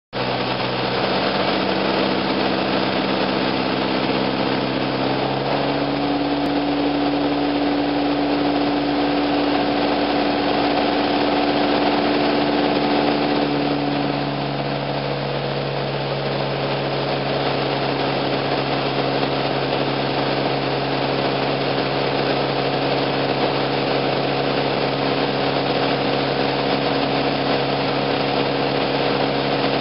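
Piper Cherokee PA-28's piston engine and propeller droning steadily in flight, heard from inside the cockpit. The engine note shifts pitch about five seconds in and drops a little and gets slightly quieter about fourteen seconds in, as the power is changed on the approach.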